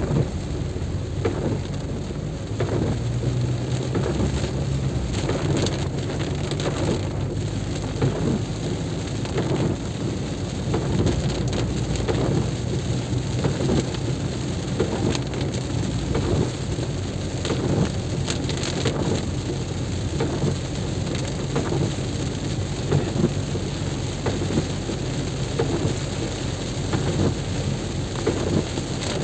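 Heavy rain falling, with scattered drops striking close by and a steady low hum underneath.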